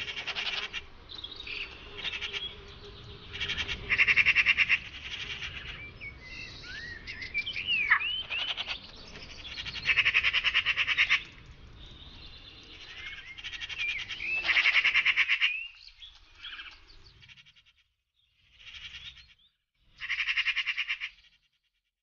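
Magpies chattering: harsh, rapid rattling calls in bursts of about a second each, repeated several times, with a few short squeaky whistled notes between.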